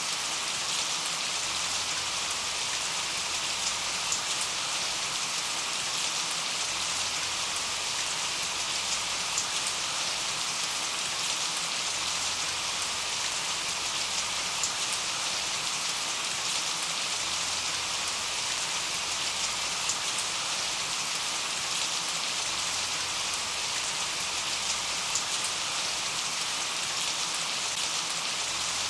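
Steady rain falling, an even hiss with many fine drop ticks.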